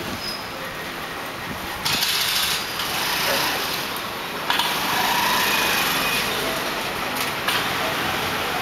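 Busy street noise with small motor scooter and motorcycle engines passing close by; it gets louder about two seconds in and again about halfway through.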